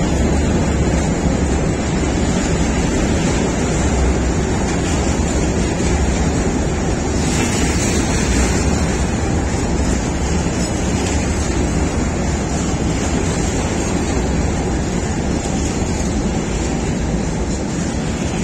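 Freight train's hopper wagons and flat wagons rolling past at close range: a loud, steady rumble and rush of steel wheels on the rails.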